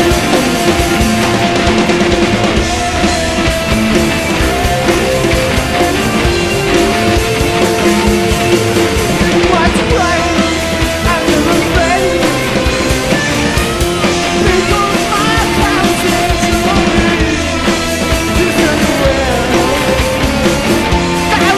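Live progressive rock from a three-piece band of electric guitar, bass and drums, playing loud and continuously, with sustained guitar notes over the bass and drums.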